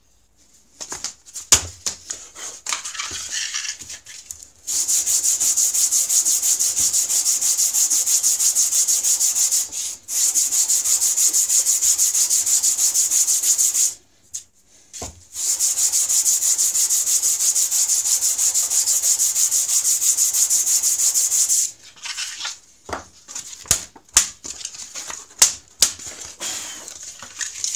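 Waterstone scraped back and forth on sandpaper laid on a flat table, flattening the stone's face, which is worn out of flat from sharpening. The scraping is steady and runs in two long spells with a short break between them, with clicks and knocks of the stones being handled before and after.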